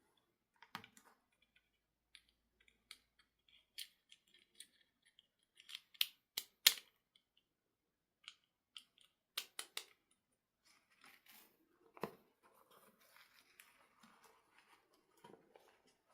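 Hands handling toys and packaging: scattered sharp clicks and snaps, loudest in a quick cluster about six to seven seconds in, with a knock about twelve seconds in and light rustling through the second half.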